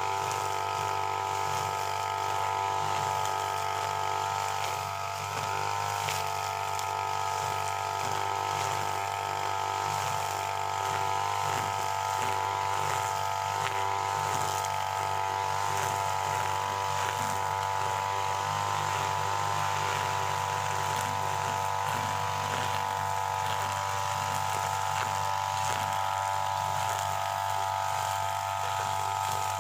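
UM328 brush cutter's small engine running at high speed while its 2.4 mm nylon line cuts grass. The engine note wavers steadily, with its pitch sagging briefly a few times as the line takes load.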